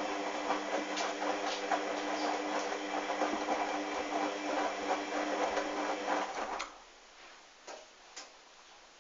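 Hoover washing machine turning its drum during a wash of wet towels: the motor hums steadily under a churning, clicking tumble of the load, then stops about two thirds of the way in. Two short clicks follow.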